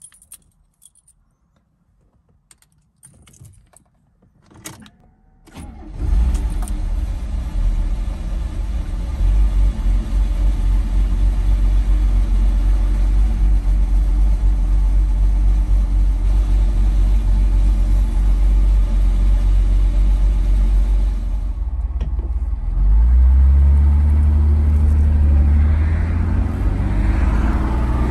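1965 Mercedes-Benz 230SL's fuel-injected 2.3-litre straight-six on a cold start: a few clicks and jingles of the key, then the engine catches about six seconds in and idles steadily. Near the end the engine note grows louder and rises in pitch as the car pulls away under load.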